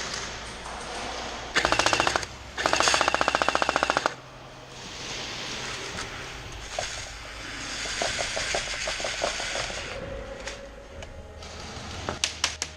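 Airsoft M249 electric machine gun firing two bursts with a fast, even rattle: a short burst about a second and a half in, then a longer one of about a second and a half. A few sharp cracks come near the end.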